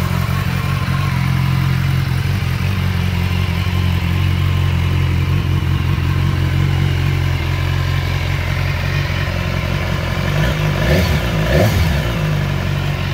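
BMW S1000XR's inline-four engine idling steadily in neutral, with two short throttle blips, rising and falling in pitch, near the end.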